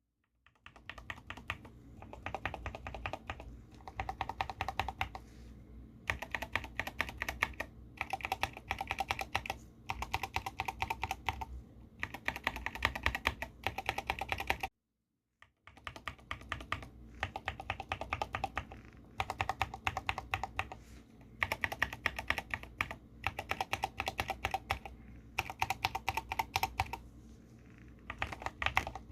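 Mechanical keyboard keys with Huano American Rose Garden 35 g switches being pressed quickly over and over, in bursts of clicking and clacking with short pauses. There is a brief dead-silent break about halfway.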